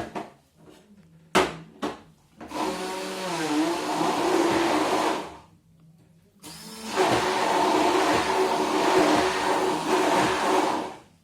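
Electric mixer blending strawberries, cream cheese and sugar. It runs in two bursts with a short stop between, and its pitch wavers as the blades meet the mixture. A couple of knocks come before the first burst.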